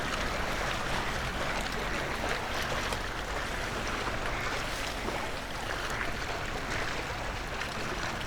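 Steady water and wind noise around a kayak on the lake, with a few faint light knocks.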